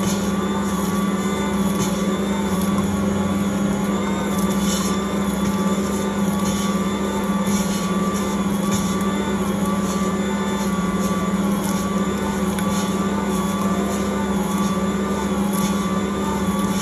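Ankarsrum Assistent stand mixer running steadily, its motor turning the stainless steel bowl while the dough roller kneads pizza dough. A steady hum with a faint wavering whine above it and a light tick about once a second.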